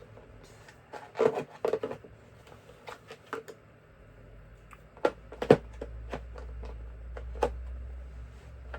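Small clicks and knocks of screwdrivers and bits being handled and pushed into the slots of their case, a cluster about a second in and two sharper knocks around five seconds in.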